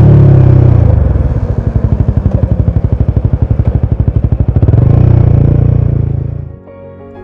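Royal Enfield Himalayan 450's single-cylinder engine through a ZARD aftermarket exhaust with the baffle fitted. It runs steadily, drops to a slow, evenly pulsing beat as the revs come down, picks up briefly about five seconds in, and fades out near the end as music comes in.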